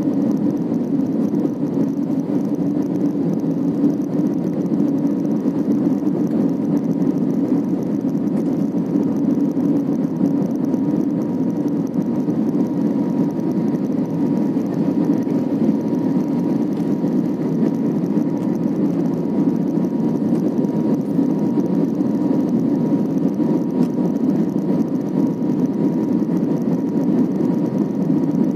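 Steady engine and airflow noise inside the cabin of an Airbus A320-family jetliner climbing after takeoff, with a faint steady hum tone running through it.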